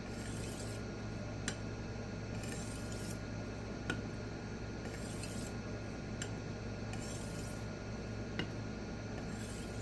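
Knife edge being stroked across a small resin-bonded diamond pocket stone, about five short scraping strokes roughly two seconds apart with a light click between some of them, over a steady low hum. The stone has just been conditioned and is cutting, working off the burr left on the edge.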